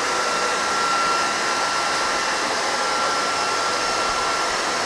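Redroad 17 Lite cordless stick vacuum running steadily while vacuuming the floor: a rush of air with one high, steady motor whine over it.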